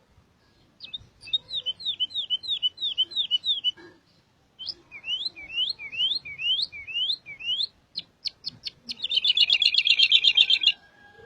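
Songbird singing: two runs of clear down-slurred whistled notes, about three a second, then a few sharp clicks and a loud, fast rattling trill near the end.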